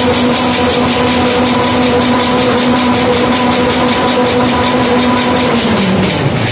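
JL-L2200 kitchen wipe roll production machine running: a steady motor hum under a fast, even ticking of about five beats a second. Near the end the hum falls in pitch.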